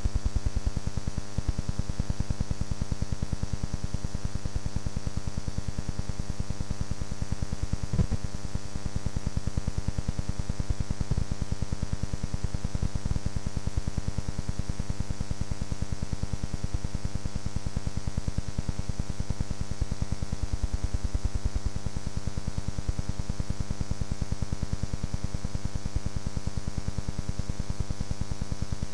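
Steady electrical hum and buzz with hiss, unchanging throughout, with a few faint clicks.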